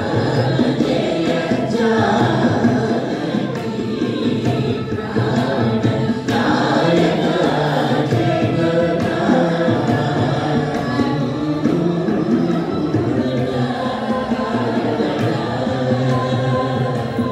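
A group of men and women singing a Carnatic devotional song in unison through microphones, accompanied by violin.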